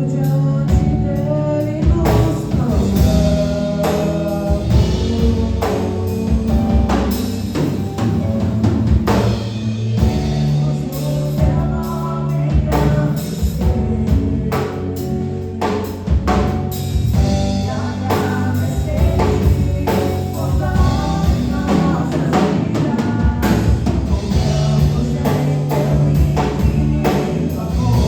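Church worship band playing a gospel song: a drum kit keeps a steady beat under bass and other instruments, with singing.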